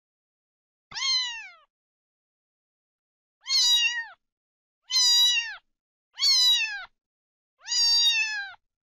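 Domestic cat meowing five times with silent gaps between. Each meow lasts about half a second to a second and holds its pitch, then drops at the end; the first is shorter and falls in pitch throughout.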